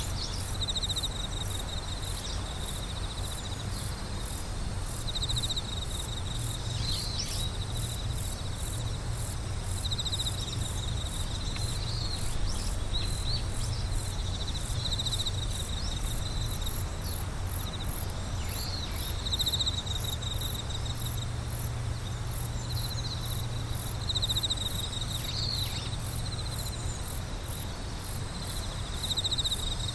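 A chorus of night insects: crickets trill in short pulsed phrases every second or two, over a fast, continuous, very high-pitched pulsing from other insects. A steady low rumble sits underneath.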